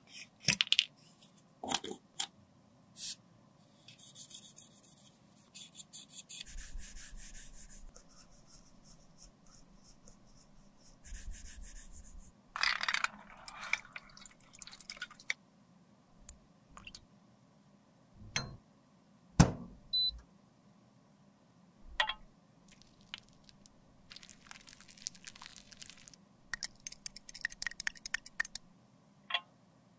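Close-up handling sounds of lipstick repair: clicks, scrapes and sharp knocks as the metal lipstick case parts are handled, rubbing alcohol poured splashing into a steel tray about halfway through, and a metal rod stirring melted lipstick in a glass beaker, clicking rapidly against the glass near the end.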